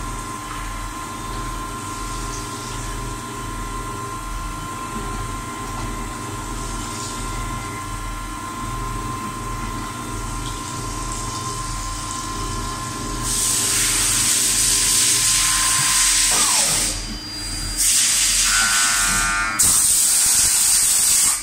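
CNC milling machine running a keyway-milling cycle under flood coolant: a steady machine hum with a constant high tone. About two-thirds of the way in, a loud hissing spray starts and cuts out briefly twice, with a short falling whine during the first break.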